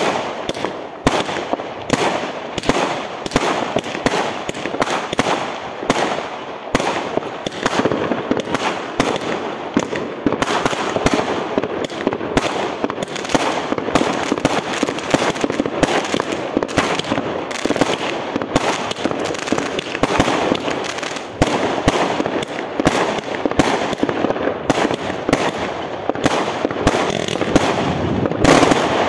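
Fireworks going off in a continuous barrage: a rapid, dense run of bangs and crackles, many per second, swelling louder near the end.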